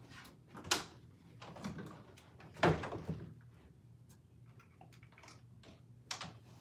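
Interior doors being shut and opened: a sharp click about a second in, the loudest knock near three seconds in, and another latch-like click near the end, over a low steady hum.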